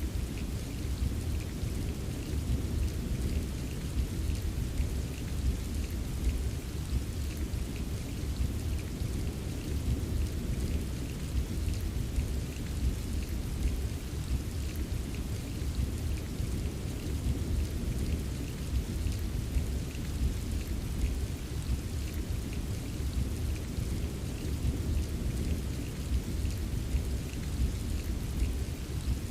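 Steady rain with many small drops tapping, over a continuous low rumble of distant thunder.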